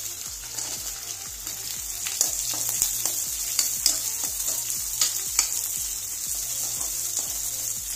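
Sliced onions sizzling in hot tempered oil in a metal kadhai, with a steady frying hiss. A steel ladle stirs them, clinking and scraping against the pan several times in the middle.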